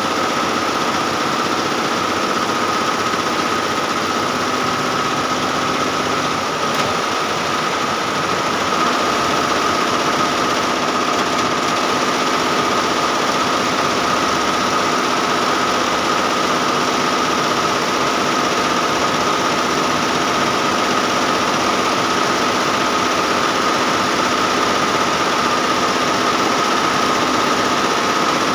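Diamond multi-head computerized embroidery machine running, its many needle heads stitching at once: a steady mechanical whirr with a constant high hum.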